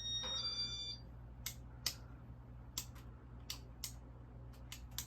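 Ceiling fan motor running with a steady low hum. In the first second a short electronic beep steps up in pitch, and after it come about eight irregular sharp ticks.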